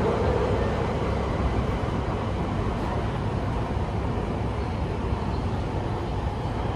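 Beijing subway train running underground, heard from inside the carriage: a steady rumble of wheels on the rails.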